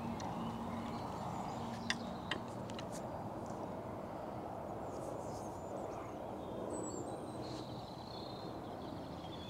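Outdoor lakeside ambience: a steady background hiss with a faint low hum, two sharp clicks about two seconds in, and a few short, high bird chirps near the end.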